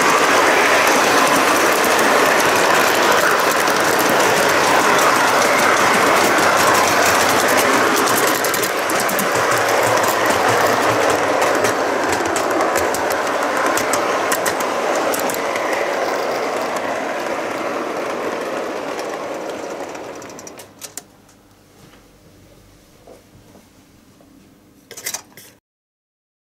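Model train rolling on metal track, heard from on board its last wagon: a steady, loud clattering rattle of wheels and couplings. The clatter dies away about twenty seconds in, leaving a few faint clicks.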